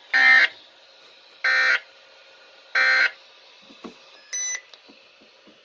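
Three short bursts of SAME digital data tones on a weather radio broadcast, each about a third of a second long and about 1.3 s apart: the end-of-message signal that closes a Weatheradio Canada alert. A fainter short electronic beep follows about four seconds in.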